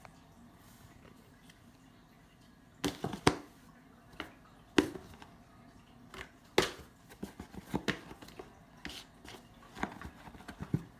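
Cat pawing and batting at a cardboard shoebox: irregular knocks and scrapes on the cardboard, starting about three seconds in.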